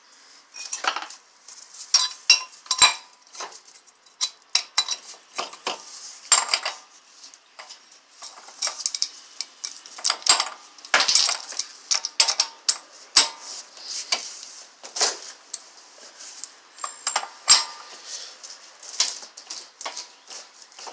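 Loose steel sockets and an extension clinking and rattling in the hands as they are fitted onto the axle nut at the wheel hub, in irregular sharp metallic clicks, with a brief ring about ten seconds in.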